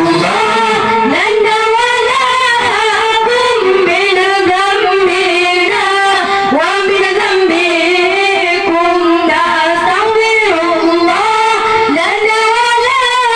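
Devotional sholawat singing in high voices, one continuous flowing melodic line that rises and falls.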